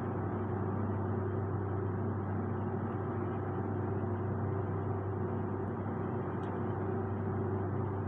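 Steady low machinery hum in a ship's air-conditioning plant room, with a single faint click about two-thirds of the way through.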